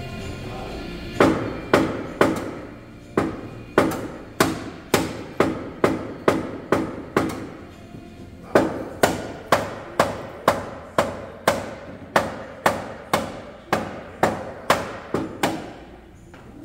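Hand hammer striking the sheet metal of a crash-damaged car's front end: about two blows a second, each with a short metallic ring, with a break of about a second near the middle.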